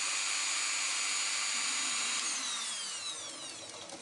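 Dremel rotary tool spinning its 60° V-bit at about 15,000 RPM with a steady high whine. About two seconds in it is switched off, and the whine falls in pitch and fades as the tool spins down.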